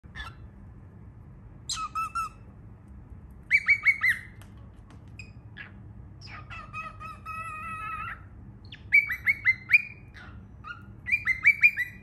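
Baby cockatiel chirping in short bursts of quick repeated notes, four or five to a burst, with one longer, steadier call near the middle.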